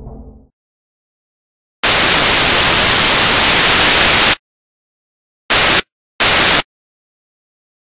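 Loud bursts of white-noise static, like a detuned TV: one lasting about two and a half seconds, then two short bursts, with dead silence between and around them.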